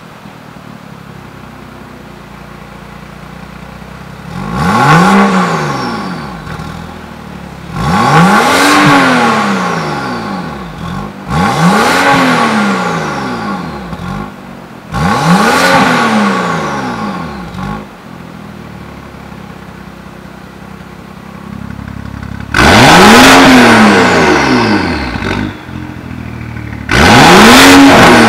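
BMW F10 535i's turbocharged 3.0-litre straight-six idling through a Fi Exhaust valved cat-back exhaust with quad tips, then revved in short blips that climb and fall back. Four blips come with the exhaust valve closed. After a few seconds of idle, two more come with the valve open, and these are slightly louder.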